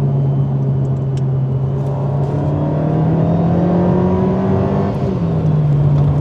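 Alpine A110's mid-mounted turbocharged four-cylinder engine pulling under acceleration. Its note rises in pitch for a few seconds, then drops back about five seconds in.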